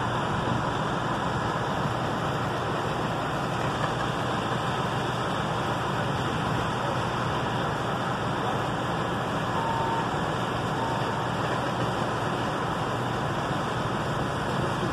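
Steady, unbroken rumble and hiss of heavy truck engines running, with water spray from fire hoses on a burning building.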